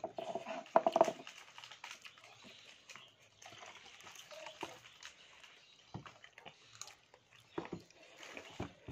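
Mouth sounds of eating rice with spicy fried grasshoppers: chewing, with scattered lip smacks and clicks and a brief louder burst about a second in.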